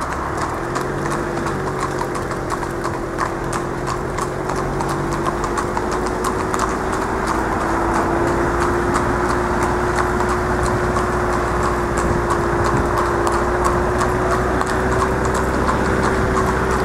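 Trotting harness horses' hooves clip-clopping rapidly and evenly on a tarmac road, over the steady hum of a motor vehicle engine running alongside.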